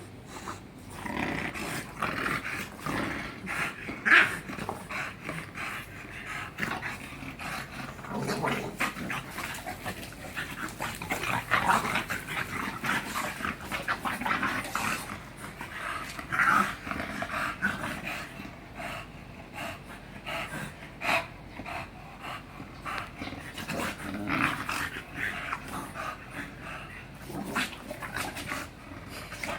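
English bulldog making a continuous run of dog noises, growls and breathing sounds, uneven and broken by many short sharp noises, with a sharp loud one about four seconds in.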